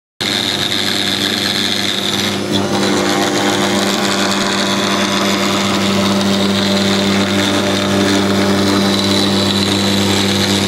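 CNC router spindle running steadily as it mills a 1-inch-thick acrylic sheet, a high whine over a low hum.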